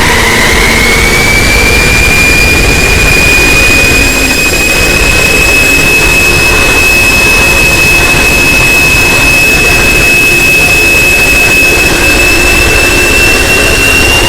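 Very loud, noisy alarm siren: one high wailing tone that glides up at the start, then holds, creeping slowly higher, over a harsh roar.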